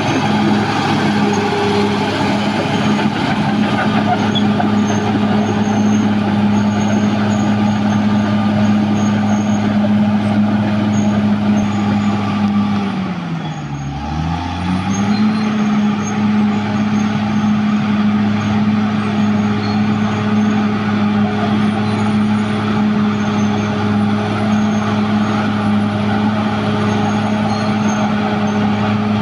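Caterpillar D6R XL bulldozer's diesel engine running steadily at high revs; about halfway through the engine speed drops sharply for a moment, then climbs back up and holds steady again.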